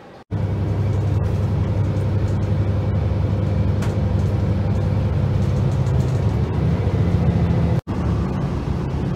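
Steady low rumble of a moving vehicle heard from inside. It cuts out for an instant near the end and resumes.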